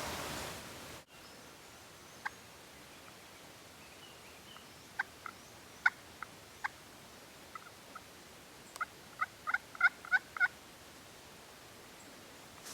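Wild turkey gobbler gobbling: a fast rattling run of about eight notes a little under nine seconds in, after a handful of single short notes.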